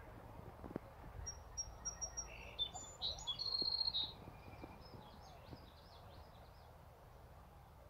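A songbird singing: a run of short high notes, then a brief trill, from about one to four seconds in, fading to fainter notes after. A few soft clicks sound over a low outdoor background.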